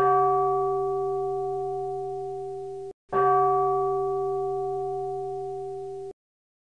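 A bell-like metal tone struck twice, each stroke ringing and slowly fading for about three seconds before being cut off abruptly.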